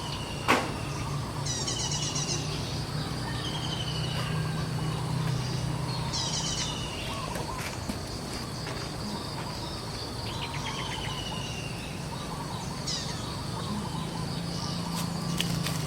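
Birds calling outdoors: several repeated high trills and short falling whistles over steady background noise, with a low hum underneath. A single sharp click sounds about half a second in.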